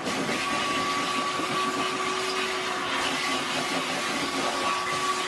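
Vacuum cleaner running steadily with a hose and crevice nozzle, sucking dust out of wooden drawer compartments: an even rushing noise with a steady whine.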